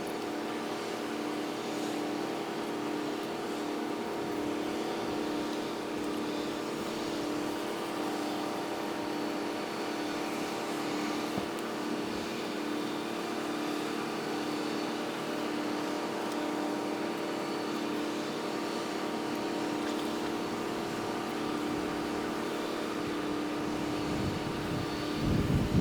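Steady engine hum holding one pitch throughout, with several fixed tones over a light noise, like a boat's motor; the audio runs at five times normal speed.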